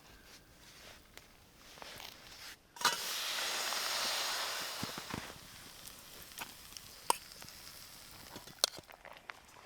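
Food sizzling over a wood campfire: a sharp click about three seconds in, then a loud hiss of sizzling for about two and a half seconds, dying back to a quieter sizzle with scattered pops and crackles.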